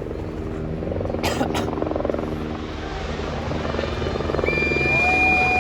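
Engine noise that builds in loudness, with a steady high note held for about a second and a half near the end.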